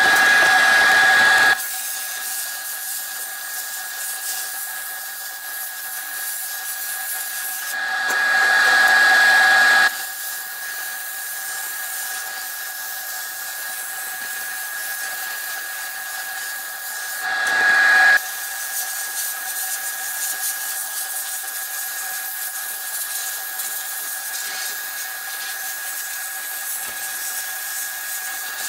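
Sandblast cabinet in use: the blast gun hisses steadily as it sprays abrasive onto rusted seat-frame parts, with a constant high whine underneath. The hiss swells louder three times, at the start, around eight seconds in and again around seventeen seconds in.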